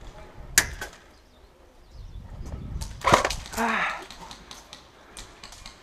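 Sharp snaps of airsoft gunfire across the field: one loud crack about half a second in, a couple of fainter ones after it, and a louder noisy burst around three seconds in. A brief call with a slightly falling pitch follows just after the burst.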